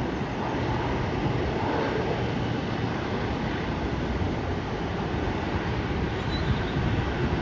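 Beechcraft Super King Air 200's twin turboprop engines as it lands, a steady rumbling roar that holds level throughout.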